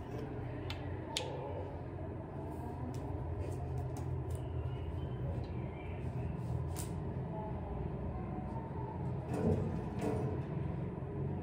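Small clicks and rustles of a plastic Colgate toothpaste tube and a biscuit being handled, a few sharp ticks scattered through, over a steady low hum.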